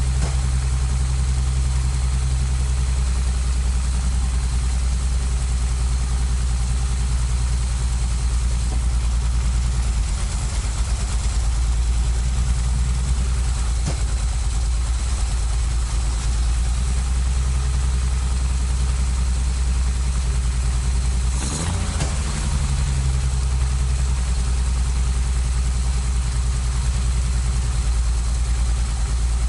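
Datsun 240Z's L-series straight-six, with a crossflow head and triple sidedraft carburettors on open velocity stacks, idling steadily. The idle dips briefly about three quarters of the way through. Number six cylinder draws weaker intake suction than the others, which the owner takes for a fault on that cylinder.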